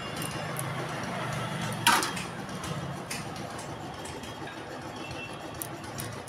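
Wooden spatula stirring a dry mix of chopped roasted nuts and seeds in a metal kadhai, with one sharp knock against the pan about two seconds in. A steady low hum runs underneath.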